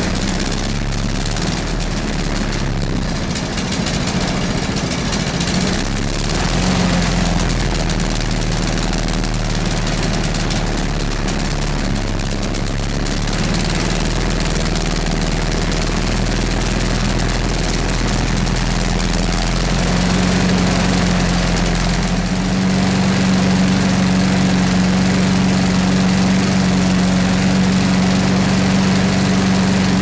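Briggs & Stratton 190cc single-cylinder four-stroke engine on a Craftsman self-propelled push mower running steadily. It is running again after its spark plug and ignition were checked. Its note shifts a little about twenty seconds in, then holds steadier and slightly louder.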